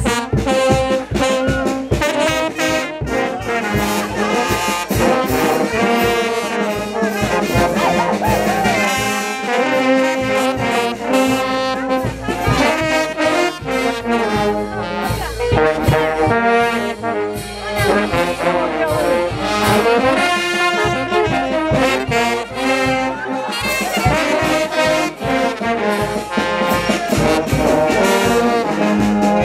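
Brass band playing: trumpets, trombones, baritone horns and sousaphones sounding together over a steady beat.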